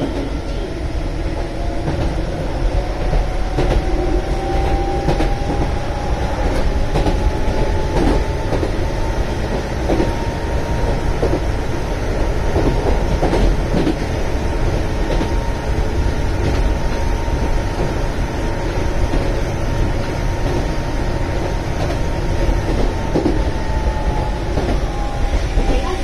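Keihan 600 series electric train heard from inside the passenger car while running: a steady rumble of wheels on rail with scattered clicks over rail joints. A motor whine climbs in pitch over the first several seconds as the train gathers speed, holds steady, then drops near the end as it slows.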